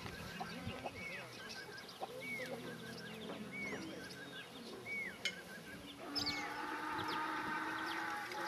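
Farmyard chickens clucking and calling, with a short rising-and-falling call repeating about once a second and scattered high chirps; about six seconds in, a louder, drawn-out call joins.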